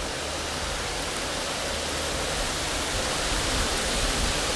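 Steady rushing wind noise, with uneven low rumbling from wind buffeting the microphone.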